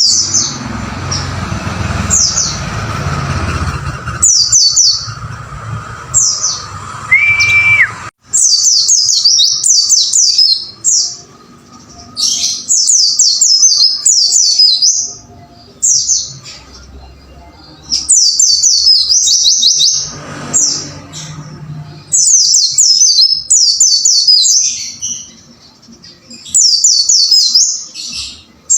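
White-eye (pleci) song: quick repeated phrases of high, falling notes, each phrase lasting a second or two with short gaps between. During the first eight seconds a noisy low rumble and a steady whistled tone sit under the song, then drop away.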